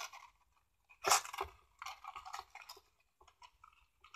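Ribbon and a cardstock box rustling in several short bursts of handling noise as a bow is tied in the ribbon threaded through the box.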